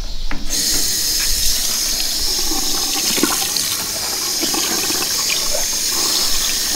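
Water running from a kitchen faucet into a stainless-steel sink, splashing over a salmon fillet being rinsed under it; the tap is turned on about half a second in and the flow stays steady.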